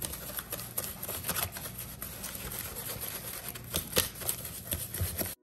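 A fork clicking and scraping against a mixing bowl as glue slime is stirred, with a run of irregular small clicks over a soft rustling, cutting off suddenly near the end.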